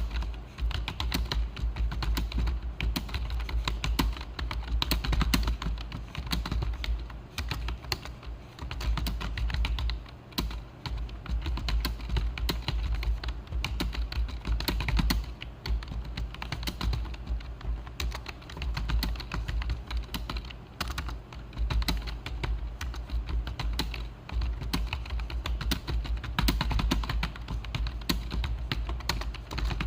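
Fast, continuous typing on a computer keyboard: a rapid stream of key clicks during a speed-typing test, broken only by a few brief pauses.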